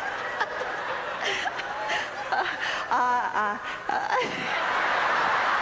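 A woman laughing into a handheld microphone in short bursts, with a quick run of ha-ha pulses about three seconds in. A steadier wash of noise builds near the end.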